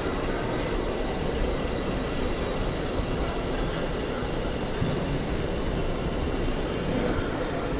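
PrestoMarine L200F tender lift running, a steady, unchanging mechanical drone with a faint whine.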